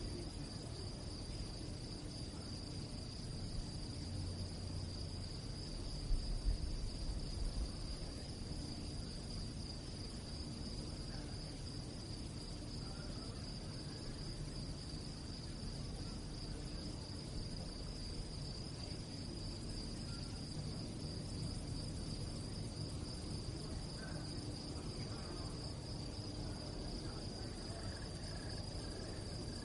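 Crickets chirping in a steady chorus, a continuous high trill, over a low rumble, with a few low thumps about six to eight seconds in.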